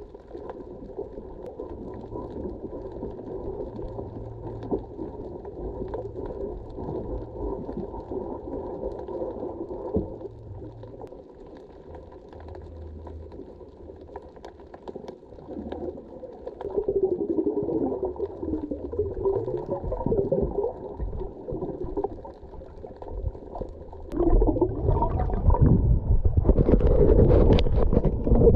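Muffled underwater sound of a sailboat's hull being scrubbed clean of algae with a long-handled brush: a low gurgling rumble with scattered scraping clicks. In the last few seconds the microphone breaks the surface into loud splashing and bubbling.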